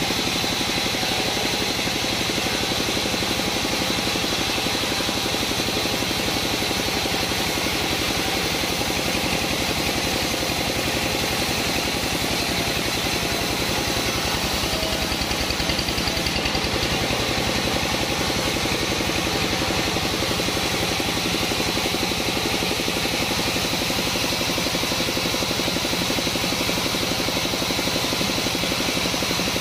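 Engine-driven sawmill saw running steadily, a constant engine hum with a steady high whine over it.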